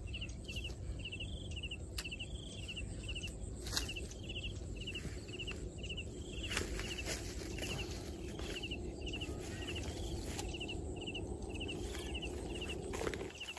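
Repeated high-pitched chirping calls, each a short quick trill, about two a second, from a small wild creature, over a steady low rumble with a few faint clicks.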